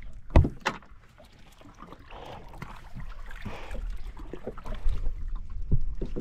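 Two sharp knocks on a small boat about half a second in, then water rushing and splashing, with a few more knocks near the end.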